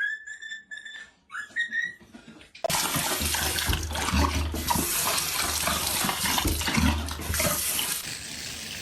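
Water running hard, like a tap or shower, starting abruptly about three seconds in and falling off near the end. Before it come a couple of brief high-pitched squeals.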